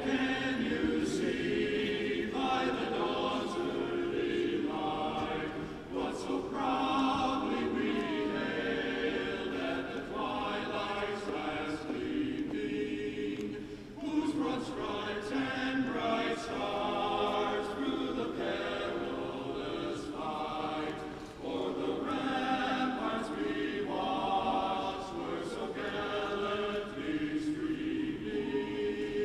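The national anthem sung in a hockey arena, in phrases of long held notes with short breaks between them, about 6, 14 and 21 seconds in.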